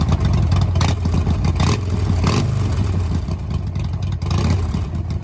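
Motorcycle engine running with a steady low drone, with several short bursts of rushing noise over it.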